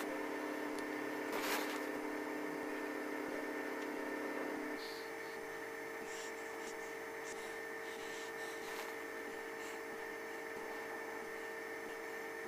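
Steady electrical hum and hiss of room tone, made of several constant tones. There is one brief sharp noise about a second and a half in. A little before halfway, the lowest of the hum's tones cuts out and the sound drops slightly.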